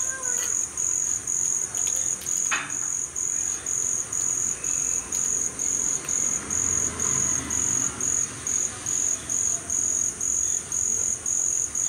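Night insects, crickets, chirping in a steady high-pitched rhythm of about two pulses a second over a continuous high trill.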